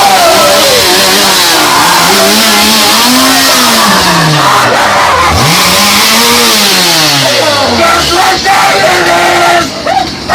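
Two-stroke chainsaw engine revving hard, its pitch climbing to a peak and falling back twice. A few short dips in level come near the end.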